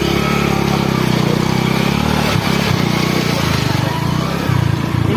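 Motorcycle engine running steadily while riding, under an even hiss of wind and road noise.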